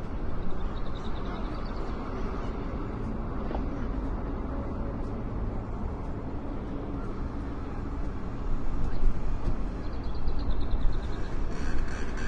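Motorcycle engine running at idle with a steady rumble, turning louder and more uneven about eight seconds in, as the throttle is opened in short blips.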